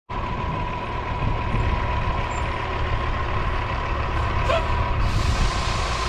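Diesel semi truck with a loaded dump trailer approaching, its engine running with a steady low rumble and a thin steady whine. A brief chirp comes in about four and a half seconds in, and a louder hiss joins about five seconds in.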